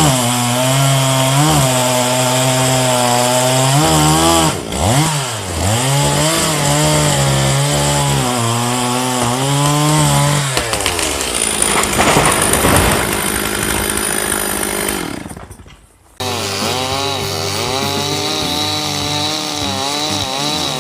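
Chainsaw running at high revs, its pitch sagging and recovering several times as it works; the sound turns ragged and fades, cuts out briefly about three-quarters of the way through, then a chainsaw runs again.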